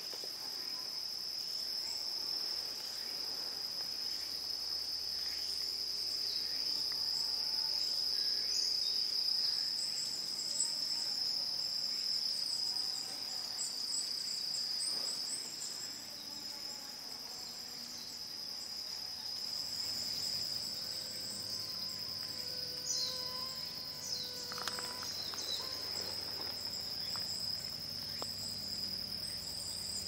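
Chorus of singing insects, crickets or their kin: one steady high-pitched trill without a break, with scattered short chirps higher up.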